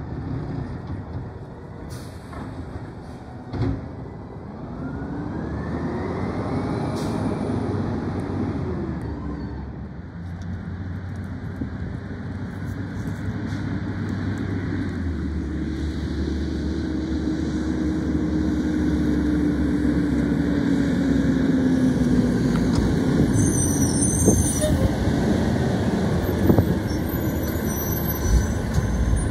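Diesel garbage truck engines: first a refuse truck driving off with its engine note rising and falling, then an automated side-loader garbage truck approaching and getting steadily louder. Its brakes squeal as it slows to a stop near the end.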